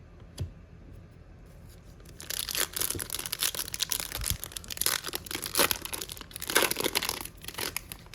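Foil wrapper of a trading-card pack crinkling and tearing for several seconds, starting about two seconds in after a single click.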